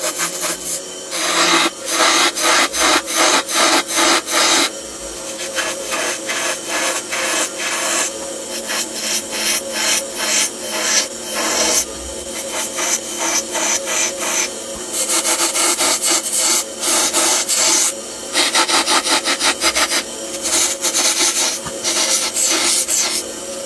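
Drilling machine cutting into wood with a rapid, rhythmic rasping scrape, about five strokes a second, coming in loud spells between steadier grinding stretches, over a steady machine hum.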